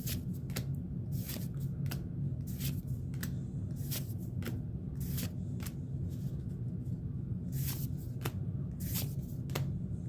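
Pokémon trading cards being flipped through by hand: a string of short, irregular card flicks and slides, over a steady low hum.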